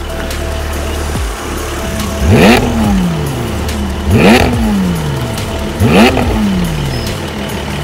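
Porsche 718 Spyder's 4.0-litre flat-six idling through a Fi Exhaust valvetronic catback and catless downpipes with the valves open, blipped three times, about two seconds apart. Each rev climbs sharply and falls back to idle over about a second.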